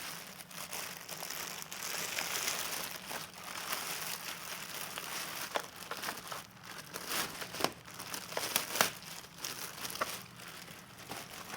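Packaging crinkling and rustling with scattered clicks and knocks as packing material is pulled off a new chainsaw power head.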